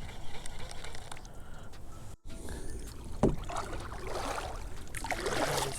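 Water sloshing and splashing against a kayak, over low wind rumble, with the splashing strongest in the last two seconds. The sound drops out briefly about two seconds in.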